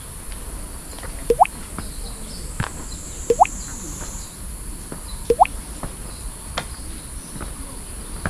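Water dripping into a pool: a pair of quick rising plops about every two seconds, over a steady high-pitched buzz of insects.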